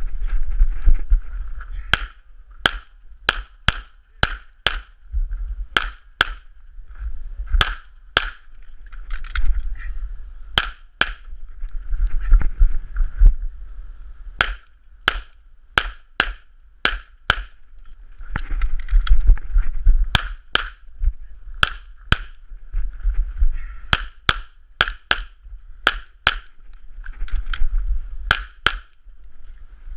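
Semi-automatic pistol firing some thirty-odd shots, mostly in quick pairs and short strings a fraction of a second apart, with pauses of a second or more between strings, over a low rumble.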